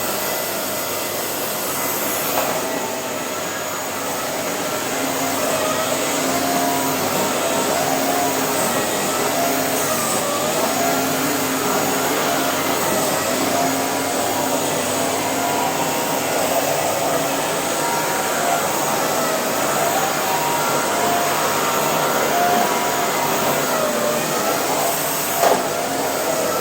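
Vacuum cleaner running steadily, its motor whine wavering slightly in pitch. A single short knock near the end.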